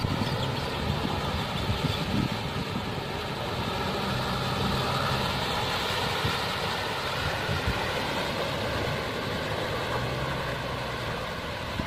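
Mahindra Thar's diesel engine running steadily as the jeep ploughs through muddy water, with the wash of water churned up by the tyres.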